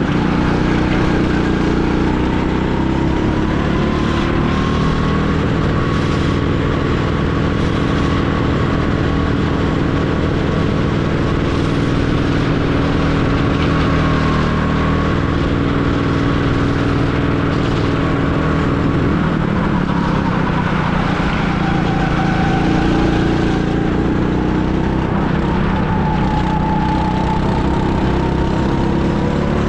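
Go-kart engine running hard, its pitch rising and falling as the throttle is worked.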